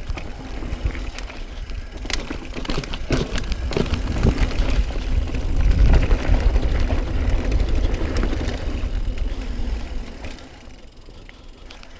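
Mountain bike descending a dirt and rock trail: tyres rumbling over the ground, with rattling knocks from the bike over rocks and roots and wind rumble on the camera microphone. It is loudest in the middle and eases off near the end.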